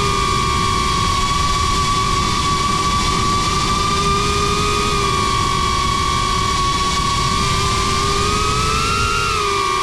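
Cinewhoop FPV drone's brushless motors and ducted propellers whining steadily in flight. The pitch rises about eight seconds in as the throttle comes up, then drops back near the end.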